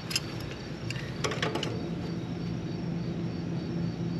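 A few light metal clicks and taps as slip-joint pliers are set on and clamped around a copper suction line fitting to squeeze it tighter on the pipe, once near the start and again a little over a second in. Under them runs a steady low hum and a faint, evenly repeating high chirp.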